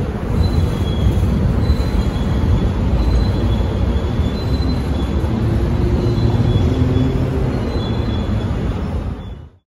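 Freight train of flatcars loaded with garbage containers rolling past: a steady rumble of wheels on rails, with high wheel squeals coming and going. The sound cuts off suddenly near the end.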